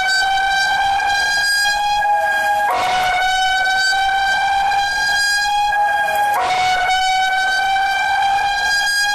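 Synthesized emergency alert alarm tone, a buzzy horn-like note sounding in three long back-to-back blasts of about three seconds each, each drifting slightly upward in pitch.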